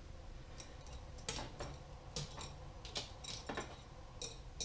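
Light clicks and knocks of small parts and tools being handled, about eight at irregular intervals.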